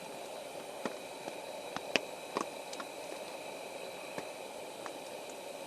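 Scattered water drips tapping on a tarp at irregular intervals, about ten in all, over a steady faint hiss.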